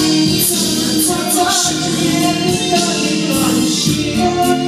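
A person singing into a microphone over loud amplified backing music, with a steady beat and a sung melody.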